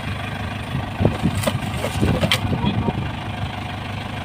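Truck engine idling steadily, with a few sharp knocks and scrapes about one and two seconds in as stones and wood are wedged under the stuck rear wheel.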